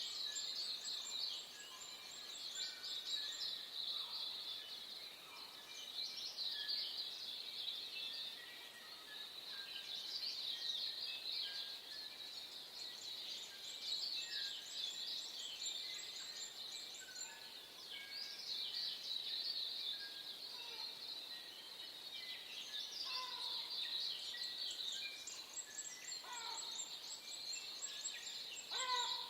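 Morning chorus of many small songbirds: a dense, continuous layer of high chirps and trills, with now and then a lower whistled note. A rapid high trill recurs about every twelve seconds.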